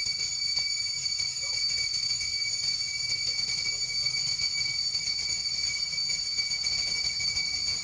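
Steady high-pitched insect drone, several even pitches held without a break, over a low rumble.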